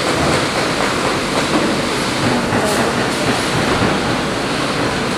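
Steady din of shoe-factory machinery running on the workshop floor.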